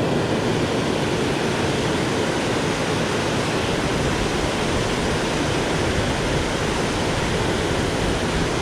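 Steady rushing of river water spilling below a low dam, an even roar that does not change.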